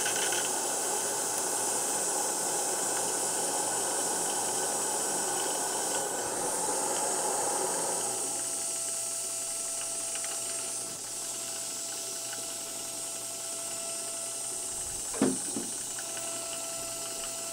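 Gas-fired live steam model locomotive hissing steadily as its throttle is eased open to warm up the cylinders, steam and burner hiss together. The hiss eases a little about halfway through, leaving a faint steady tone underneath, and a short murmur cuts in near the end.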